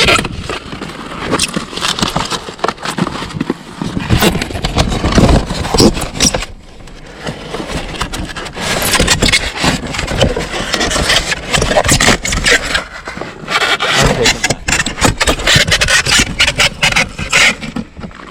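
Household junk being rummaged through and moved by hand: a dense run of clattering knocks, scrapes and rustles, with a short lull partway through.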